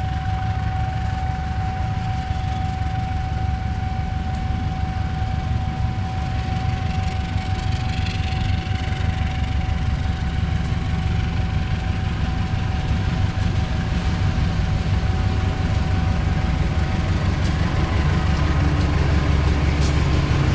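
KAI CC 206 diesel-electric locomotive hauling a passenger train as it approaches. Its low engine rumble grows louder over the last few seconds as it nears. A thin steady tone sounds until a few seconds before the end.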